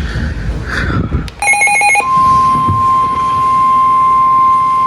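NOAA Weather Radio emergency alert: about a second and a half in, a brief burst of warbling digital data tones (the SAME header). At two seconds the steady single-pitch 1050 Hz warning alarm tone starts, which announces a severe thunderstorm warning.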